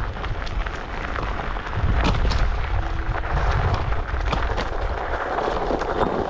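Wind buffeting an action camera's microphone during an electric scooter ride: a heavy, uneven rumble that swells about two seconds in, with frequent sharp clicks and knocks throughout.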